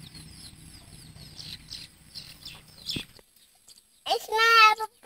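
Faint bird chirps over a low hum, which stop abruptly about three seconds in. Near the end a young girl's high voice sings out a held note.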